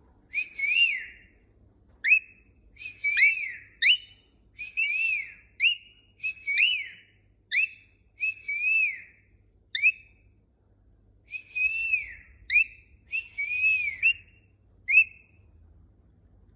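Whistling in a repeated short phrase, as when teaching a cockatiel to whistle: clear notes that arch up and down, each answered by a quick sharp downward-swept note, repeated about a dozen times with a brief pause partway through.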